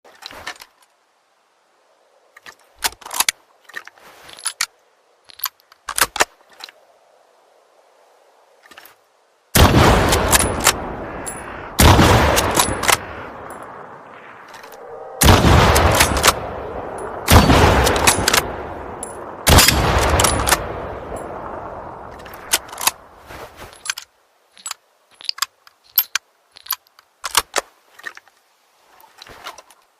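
Mosin–Nagant three-line rifle sound effect: scattered short metallic clicks and clacks, then five loud shots about two seconds apart, each with a long echoing tail, then more clicks.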